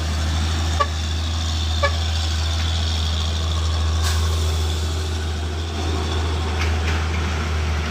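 Heavy truck's diesel engine running steadily, a low continuous drone, with two short high chirps about one and two seconds in.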